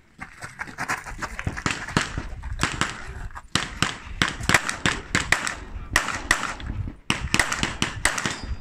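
Rapid strings of pistol shots, many sharp cracks in quick succession broken by short pauses.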